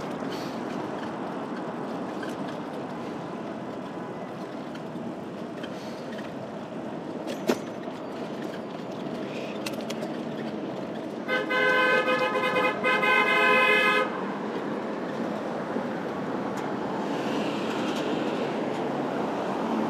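A vehicle horn blares for almost three seconds, about halfway through, with a short dip partway. Steady traffic and wind noise runs underneath.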